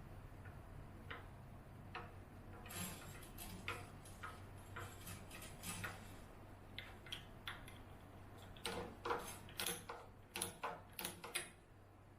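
Scattered light clicks and knocks of small objects being handled, coming faster and louder in a run near the end, over a steady low hum.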